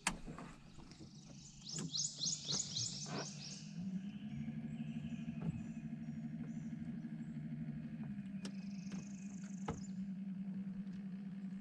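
A bird gives a quick run of about six high chirps about two seconds in. Under it runs a steady low motor hum that rises slightly in pitch about four seconds in and drops back about four seconds later.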